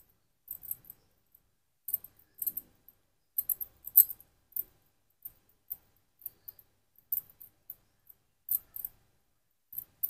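Bangles on a woman's wrists clinking in short, irregular high-pitched jingles as her hands pinch and round a ball of modak dough, the loudest clink about four seconds in, with faint soft handling sounds of the dough underneath.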